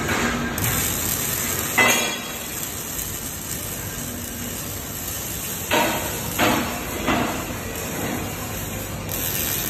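Robotic wire-feed arc welding on square steel tube: the welding arc hisses steadily. A sharp knock comes about two seconds in, and three more knocks about two-thirds of a second apart around six to seven seconds in.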